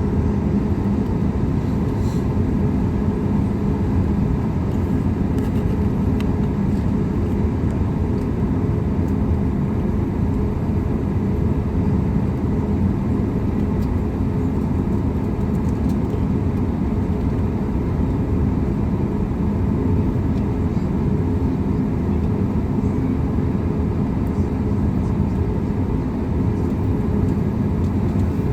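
Steady cabin drone of a Boeing 737 MAX 8 holding on the runway with its CFM LEAP-1B engines at idle, a low even rumble with a faint steady hum through it.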